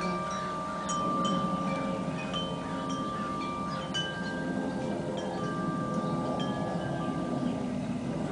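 Wind chimes ringing: irregular strikes at several different pitches, each note ringing on for a second or more.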